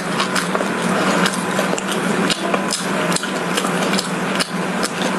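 Close-miked chewing of a crumb-coated fried glutinous rice cake (fried mochi) with red bean filling, the crisp crust crackling in many quick, irregular clicks.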